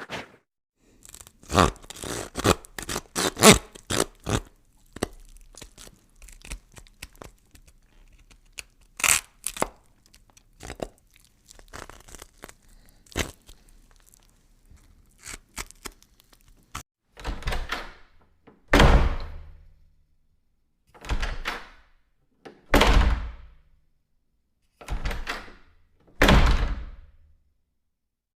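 Horror sound effect: a scatter of small irregular knocks and clicks, then six slow, heavy thuds in three pairs, each with a short dying tail.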